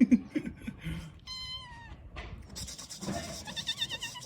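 Young kitten meowing twice: a high call about a second in that drops at its end, then a shorter wavering call near the end.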